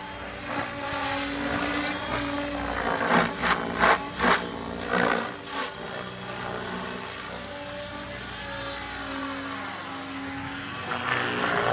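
Electric Logo 690 RC helicopter flying on VTX 697 main rotor blades. The rotor's whirring hum rises and falls in pitch as it moves, with a few short loud surges about three to five seconds in.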